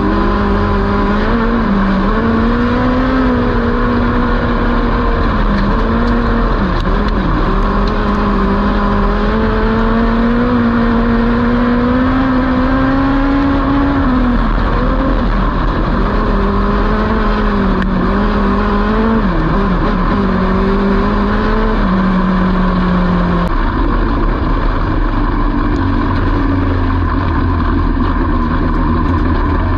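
Dwarf car's motorcycle-derived engine heard from inside the cockpit on hot laps around a dirt oval: it pulls steadily, dips and comes back several times as the driver lifts for the corners. About three-quarters of the way through the engine note drops away, and a low steady idle is left near the end as the car comes off the track.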